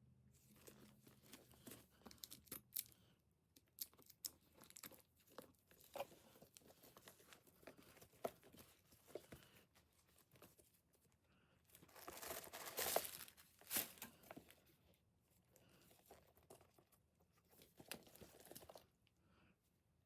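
Packaging being handled: irregular rustling, crinkling and small clicks, with a louder stretch of crinkling about twelve seconds in.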